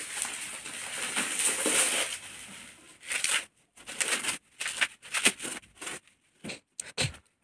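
Plastic wrapping crinkling as it is pulled off a stack of PVC wallpaper rolls: a continuous rustle for about two seconds, then short scattered crackles.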